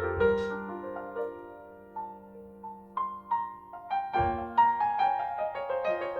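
Piano playing a slow jazz ballad: sparse single notes and chords that ring and fade, with a deep chord struck about four seconds in.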